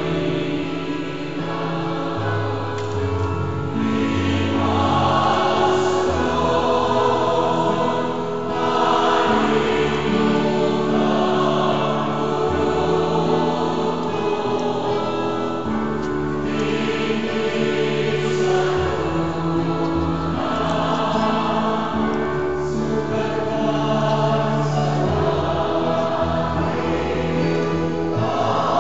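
Choir singing a slow hymn in held chords that change every couple of seconds.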